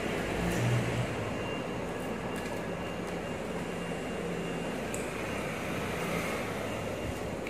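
Steady room noise, a low hum and hiss, with a few faint crackles of crispy fried pork belly skin being torn apart by hand and bitten into.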